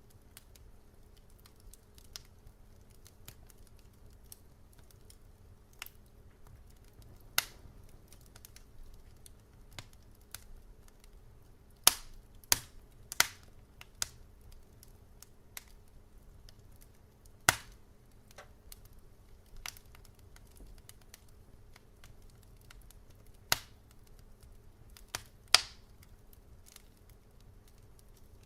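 Wood fire crackling: irregular small snaps and sharp pops, a handful of them much louder, over a faint steady low hum.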